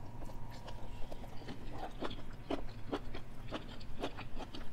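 Close-miked chewing of a mouthful of sautéed okra: irregular wet mouth clicks and smacks, a few every second.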